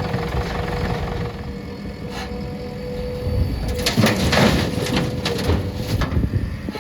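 Diesel engines of a backhoe loader and tractor running with a low rumble and a steady whining tone. A burst of rattling, scraping noise comes about four seconds in and lasts about two seconds.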